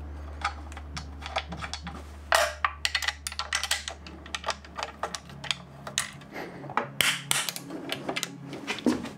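Irregular run of quick, light clicks and small metallic knocks, many in a row, from bike parts and tools being handled during assembly.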